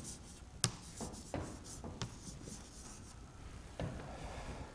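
Chalk writing on a chalkboard: faint scratching strokes with several sharp taps of the chalk against the board.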